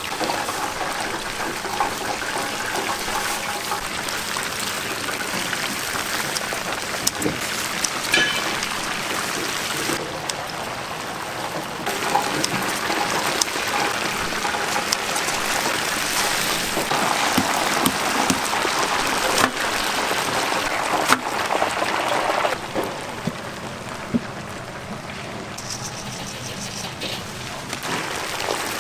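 Chicken deep-frying in hot oil in a cast-iron gamasot cauldron: a steady dense sizzle, with sharp pops and clicks scattered through it. The sizzle drops a little in level about two-thirds of the way through.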